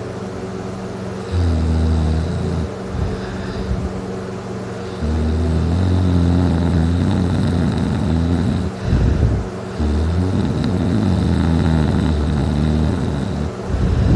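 A man snoring loudly in heavy, drunken sleep: a short low snore about a second in, then two long, fluttering snores several seconds each.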